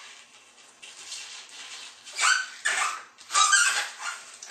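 A sheet of glossy photo paper being folded and creased by hand. About two seconds in come three loud squeaky rubs and crackles, the last one the longest.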